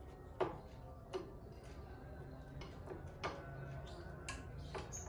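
Sharp metallic clicks and taps, about six at irregular intervals, the loudest about half a second in, as a screwdriver works on the head of an industrial sewing machine.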